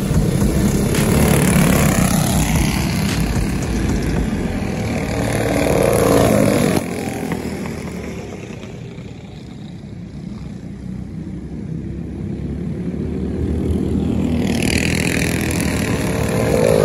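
Tillotson-class racing kart engines passing at speed, the pitch rising and falling as they go by. The sound drops suddenly about seven seconds in, then grows louder again near the end as another kart approaches.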